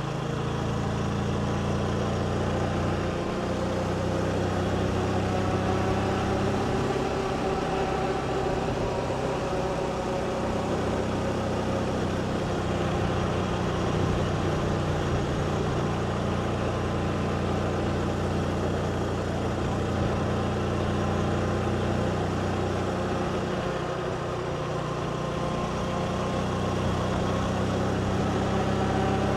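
Motorbike engine running steadily under way, its pitch shifting a little now and then with speed.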